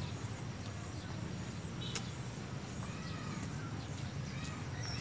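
Outdoor ambience: a steady low rumble, with a few short bird chirps in the second half and a couple of soft clicks.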